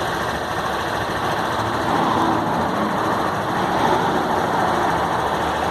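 Honda CG 160 Titan's single-cylinder four-stroke engine running steadily, its loose chain having been tightened and lubricated, which the owner says cured the annoying engine noise.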